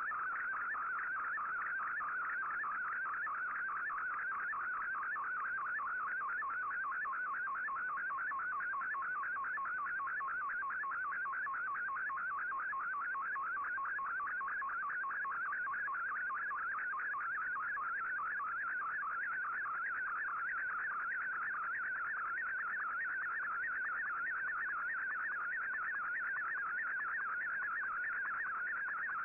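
Shortwave digital picture transmission in Fldigi's MFSK image mode, heard through an Icom IC-R8600 receiver in AM: a continuous busy warble of rapidly shifting tones over faint background hiss as a colour image is received line by line.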